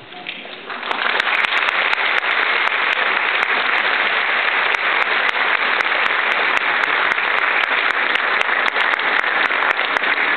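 Audience applauding in an auditorium: a dense, steady clapping that swells about a second in and holds.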